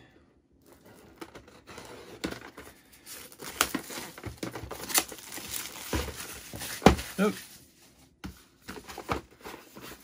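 Clear plastic wrapping crinkling and rustling as it is pulled off a cardboard product box, with scattered sharp clicks and knocks from the box being handled.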